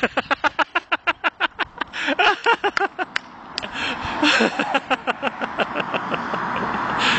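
A person's voice making quick repeated short calls, about five a second, in two runs with a break around three seconds in.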